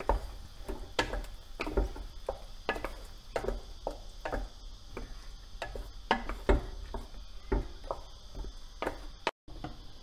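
Wooden spatula stirring chicken in a thick paste in a stainless steel pot, knocking and scraping against the pot at about two to three strokes a second.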